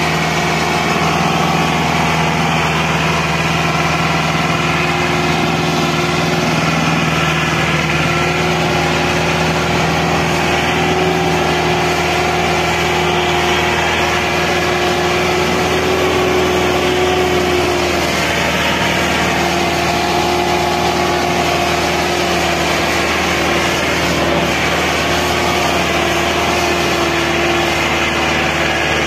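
Tractor engine running steadily at an even speed, with no revving or stopping.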